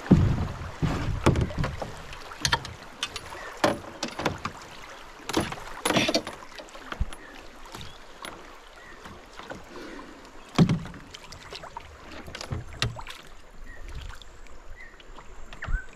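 Aluminium canoe hull bumping and scraping over the rocky bottom of a shallow riffle, in a run of sharp knocks over water rushing along the hull. The knocks come thickest in the first six seconds, with one more loud bump about ten and a half seconds in, and are sparser once the water deepens: the river is so low that the canoe keeps bottoming out.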